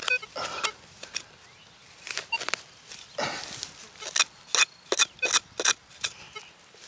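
A hand digging tool scraping and prying in soil, giving irregular sharp clicks and scrapes of dirt and grit, with a longer scrape about three seconds in and a quick run of clicks near the middle.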